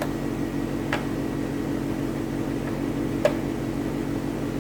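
Three small clicks from handling computer parts and connectors, the last and loudest a little past three seconds, over a steady low hum.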